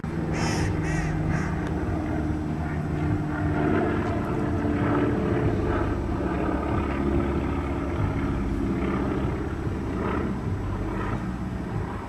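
A steady, low engine drone runs throughout. About half a second in, three short harsh bird calls sound over it.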